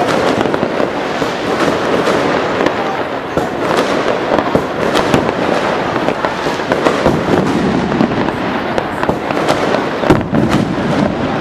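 A dense fireworks barrage: rapid bangs and crackles merge into a continuous rumble, with many sharper reports standing out, a strong one about ten seconds in.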